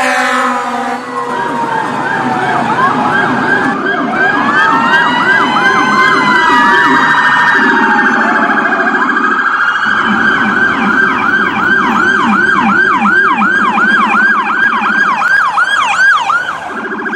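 Electronic emergency-vehicle siren tones with pitch sweeping up and down. Several siren patterns overlap at first, then a single fast yelp settles in at about three to four sweeps a second.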